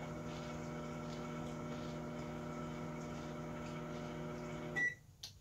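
Microwave oven running with a steady electrical hum, which cuts off suddenly near the end with a short high beep as the cooking cycle finishes.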